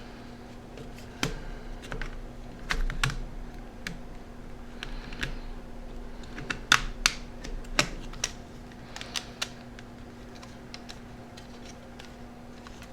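Plastic parts of a Sharp Zaurus SL-6000D handheld clicking and tapping as they are handled and pressed back together: irregular sharp clicks, thickest in the middle and thinning out near the end, over a steady low hum.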